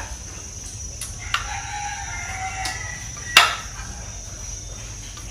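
A rooster crowing once, a single call of about a second and a half starting just over a second in. About three and a half seconds in there is one sharp knock, the loudest sound, with a few fainter clicks around it.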